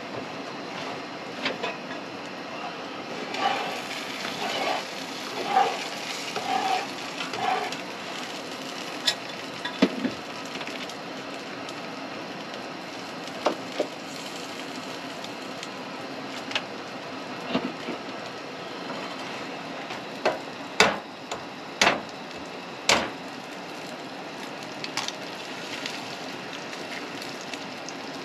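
Breakfast frying in a pan on a two-burner propane camp stove: a steady sizzle and burner hiss throughout. Scattered clinks and knocks of a utensil on the pan and stove come over it, with a run of sharper knocks about three-quarters of the way through.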